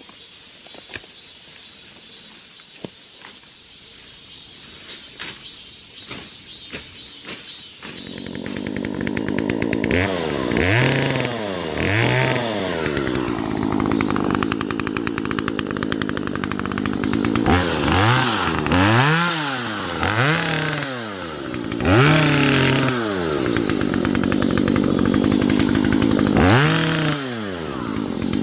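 Chainsaw coming in about eight seconds in after a few light knocks, then running with its engine revved up and down again and again as it cuts the branches of a fallen tree.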